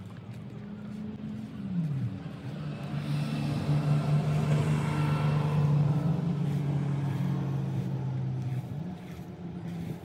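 A motor vehicle's engine passing by: its pitch drops early, holds steady, then rises again near the end, and it is loudest in the middle.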